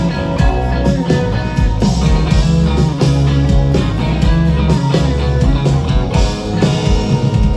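Live rock band playing an instrumental passage, with electric guitar over bass and drums, amplified through a concert PA.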